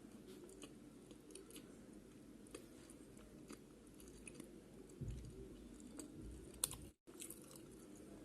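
Close-miked chewing of chicken pizza: soft, wet mouth sounds with many small clicks and light crunches. A sharper click comes about six and a half seconds in, and the sound cuts out completely for a moment just after.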